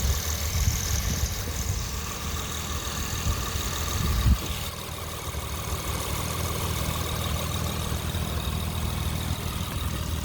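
Honda car engine idling steadily. It swells briefly about four seconds in, then settles slightly quieter.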